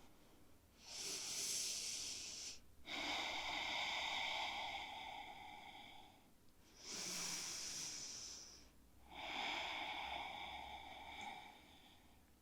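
A person breathing slowly and audibly, close to the microphone: two full breaths, each a shorter breath followed by a longer one.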